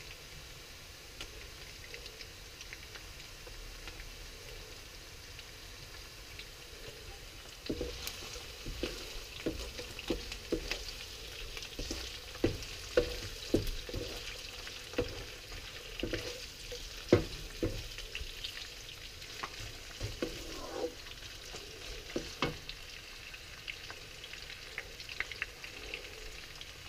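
Prawns, onion and garlic sizzling in hot oil in a wok. From about eight seconds in, a wooden spatula scrapes and knocks against the wok as they are stir-fried, in irregular clacks.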